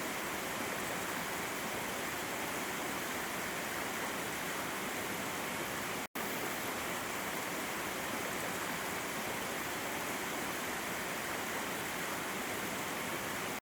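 Water flowing and splashing over rocks in a steady rush, briefly cut out for a split second about six seconds in.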